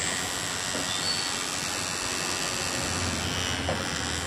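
Small DC motor spinning a plastic propeller on a homemade matchbox toy helicopter: a steady whir of motor and blade air with a faint high whine, a low hum growing slightly about three seconds in.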